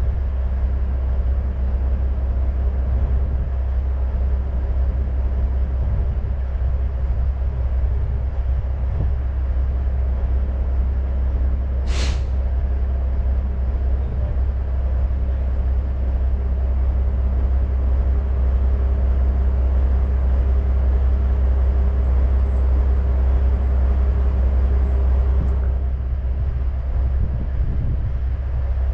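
Heavy truck's diesel engine idling steadily, with one sharp click about twelve seconds in.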